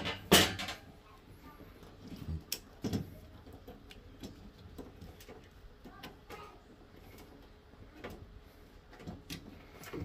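Clicks and light knocks of hands working rubber hoses off a washing machine's plastic water inlet valve. Two sharp, loud clicks come right at the start, then scattered single clicks and knocks.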